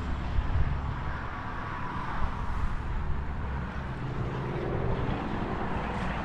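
Wind buffeting the microphone in a heavy, uneven low rumble, mixed with the steady noise of highway traffic on the bridge.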